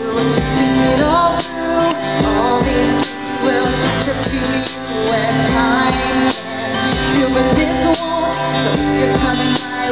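Live acoustic band music: a woman singing over strummed acoustic guitars.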